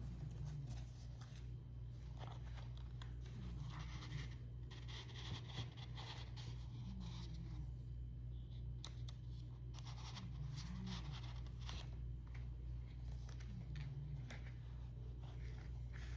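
Irregular soft rustling and scratching of paper, such as notebook pages being handled and turned, over a steady low hum.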